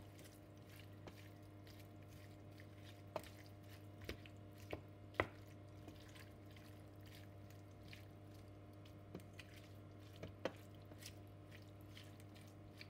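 Wooden spoon stirring pieces of squid in a stainless steel pan: scattered soft knocks and scrapes of the spoon against the pan, the loudest about five seconds in, over a faint steady hum.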